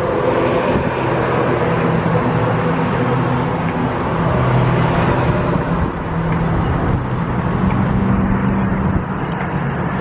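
Steady road traffic noise with the low hum of a motor vehicle engine running, its pitch shifting a little.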